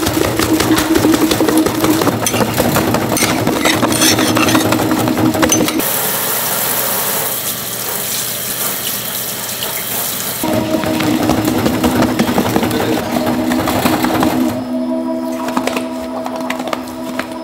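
An electric kneading machine with a granite bowl runs with a steady hum as it works a mass of glutinous rice dough. About six seconds in, the hum gives way to a kitchen tap running water into a steel sink for about five seconds, and then the machine hum returns.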